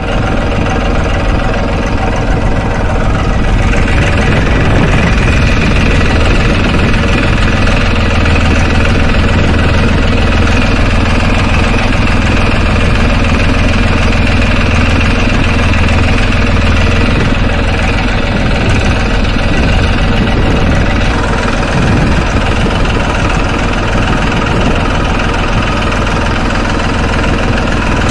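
Tractor's diesel engine running steadily while it powers a boom sprayer.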